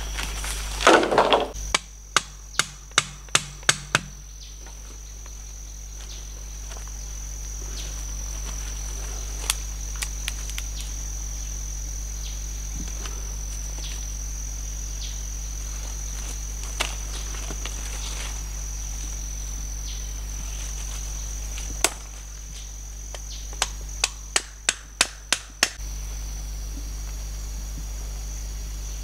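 Machete chopping bamboo: a brief louder clatter about a second in, then a quick run of about six sharp chops, and near the end one chop followed by another run of about seven. A steady high insect drone runs underneath.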